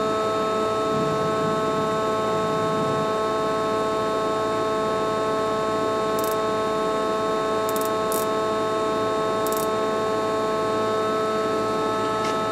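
Steady hum of several constant tones from the powered-up CNC lathe standing at rest, with a few faint high ticks between about six and ten seconds in.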